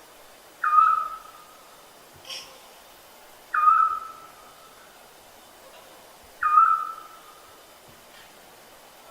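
Owl calling: a single high whistled note that slides down slightly at its start, repeated three times about three seconds apart.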